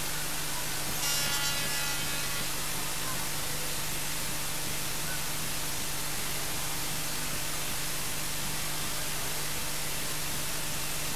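Steady hiss of static with a low electrical hum, the noise floor of the recording. About a second in, a short pitched sound with many overtones rises briefly above it.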